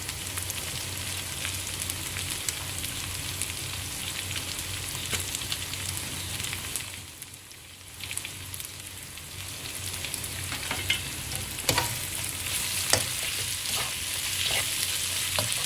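Prawns and fish cake sizzling in hot oil and chili paste in a pan, with the sizzle easing briefly about seven seconds in. A spatula now and then clicks and scrapes against the pan, more often near the end.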